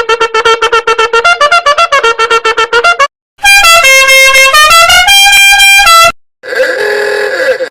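Meme sound effects one after another: first a fast stuttering string of buzzy, horn-like notes, about eight a second, then, after a short gap, a brassy horn-like tune of held notes stepping up and down in pitch, and near the end a short, rougher effect with wavering pitch.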